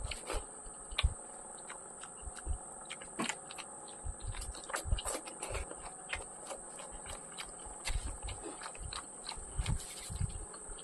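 Close-miked eating sounds: a person chewing rice and curry, with irregular wet mouth clicks and smacks and soft low thumps.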